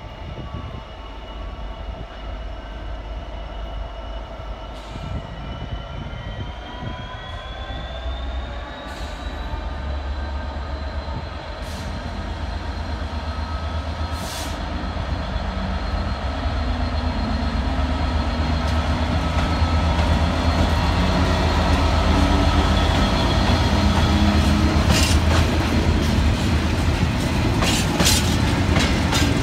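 GB Railfreight Class 66 diesel-electric locomotive, with an EMD two-stroke V12 engine, approaching and passing, its engine note rising about seven seconds in and growing steadily louder over a deep rumble. Near the end the tank wagons roll by with sharp wheel clicks over the rail joints.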